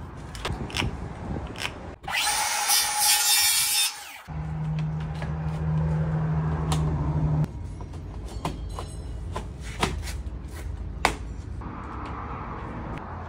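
Construction tool work on a door frame: a power tool runs in a loud, noisy burst about two seconds in, followed by a steady low hum for about three seconds, with scattered sharp taps and knocks of hand tools throughout.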